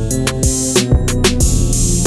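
Background music: a steady drum beat, about two hits a second, over deep bass and melodic instruments.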